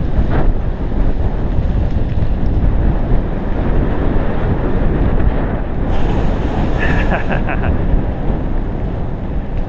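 Wind buffeting the microphone of a bike-mounted camera and tyres rumbling on a dirt track as a bicycle rides along at speed. About seven seconds in there is a brief high-pitched chatter.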